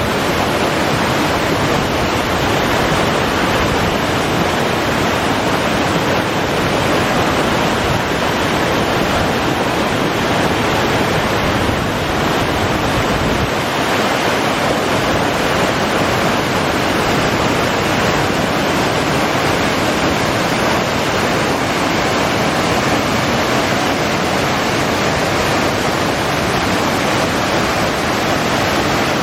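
Waterfall rushing: a steady, loud roar of falling water, unchanging throughout.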